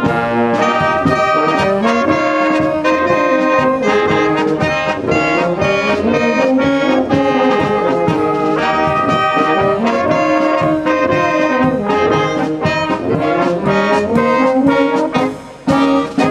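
Brass band music with trombones and trumpets playing over a steady beat. It dips briefly near the end.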